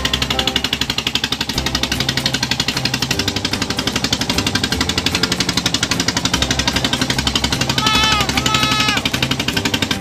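Boat engine running steadily with a fast, even chugging, under background music. Two short high pitched calls come through about eight seconds in.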